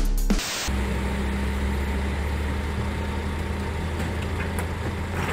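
Scania 112 truck's diesel engine idling steadily, a low even hum. A moment of music cuts off about half a second in, just before the hum begins.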